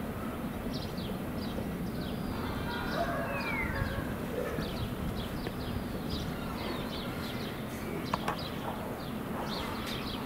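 Small birds chirping: short high chirps repeat throughout, with one falling whistle about three seconds in, over a steady outdoor background noise. A couple of sharp clicks come about eight seconds in.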